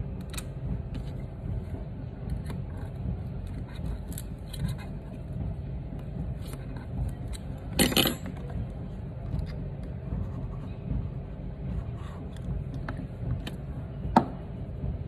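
Small hand tools clicking and scraping against an opened iPhone 7 during a repair, over a steady low hum. About eight seconds in, a sleeve brushes close to the microphone with a brief loud rustle, and near the end comes one sharp metallic click with a short ring.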